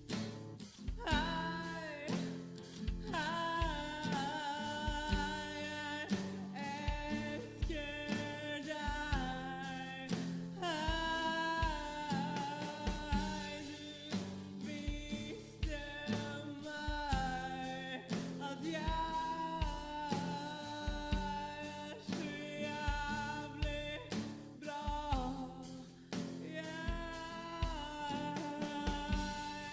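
A song playing: a woman singing over a steady drum beat and bass.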